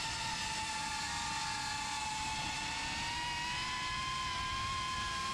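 FPV cinewhoop drone's motors and propellers whining in flight: a steady high whine that dips slightly in pitch and then rises again as the throttle changes.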